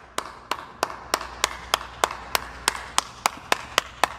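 One person clapping slowly and steadily, about three claps a second, each clap trailing a short echo as in a large empty hall.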